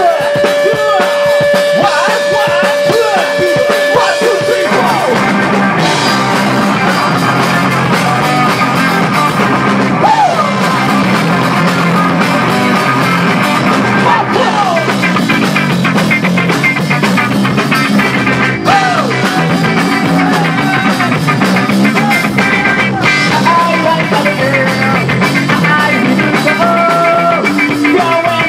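Live rock band playing loud: electric guitar, electric bass and drum kit with a male voice singing. A steady high note rings over the first four seconds or so before the full band sound fills in.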